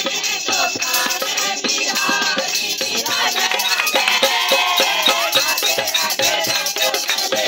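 A crowd singing a Hindu devotional chant together, with rhythmic clapping and rattling percussion keeping a steady beat.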